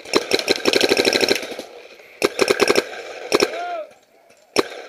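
Paintball markers firing: a rapid volley of about ten shots a second lasting over a second, a shorter burst about two seconds in, then a few single shots near the end.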